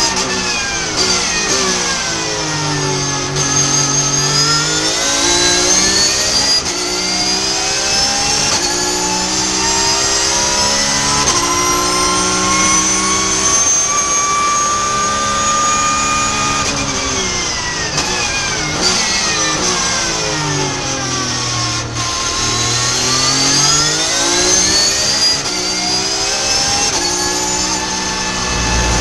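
Porsche 991.2 GT3 Cup's naturally aspirated 4.0-litre flat-six at racing revs, heard from inside the cockpit. Its pitch falls twice as the car brakes and downshifts, and climbs in steps through the gears under full throttle in between.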